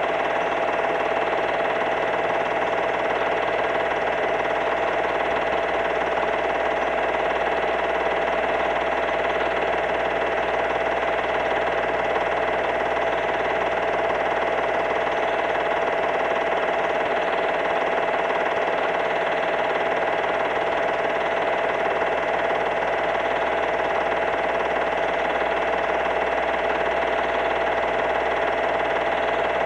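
Steady, unchanging drone: a held mid-pitched tone with several fainter tones over a hiss.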